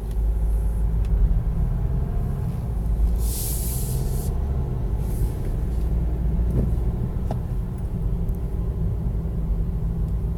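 Car engine and road rumble heard from inside the cabin as the car pulls away and drives on, with a brief hiss about three seconds in.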